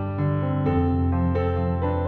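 Background music: soft, slow piano, with notes struck about every half second over a held low note.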